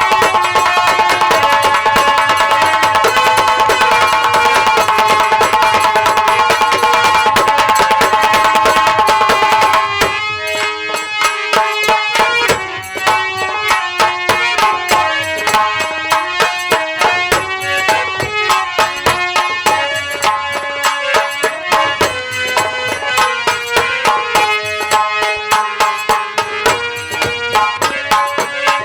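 Live Indian folk instrumental music: fast, dense drumming under a held melody, which about ten seconds in gives way to a melody played in separate notes over steady drum strokes.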